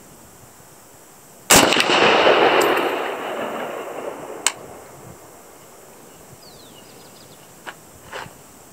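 A single shot from a PTR-91 roller-delayed semi-automatic rifle in .308 Winchester, about a second and a half in, with a long echo rolling away over about three seconds. A sharp clink follows about three seconds after the shot, and two faint knocks come near the end.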